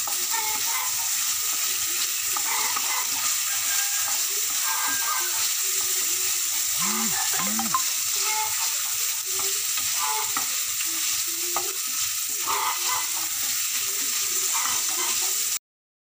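Diced meat sizzling in hot oil in a frying pan, stirred and scraped with a wooden spoon. The sizzling cuts off suddenly near the end.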